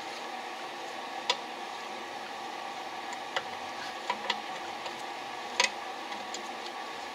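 A few light, sharp clicks of small metal parts being handled as gloved hands work on an aircraft carburetor and its airbox, scattered over a steady background hum.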